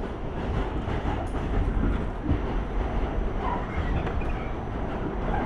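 Inside a moving subway car: the steady rumble of the wheels on the track, with short rattles and clicks over it. It grows slightly louder about half a second in.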